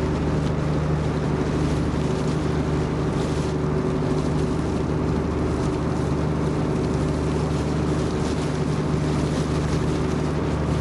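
A river cruise boat's engine running steadily with a constant low hum, over the wash of water and wind.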